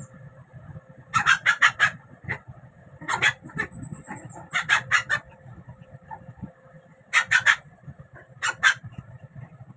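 Short, sharp animal calls in quick runs of two to four, five runs in all, over a faint steady hum.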